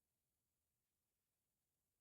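Near silence: the soundtrack holds no audible sound.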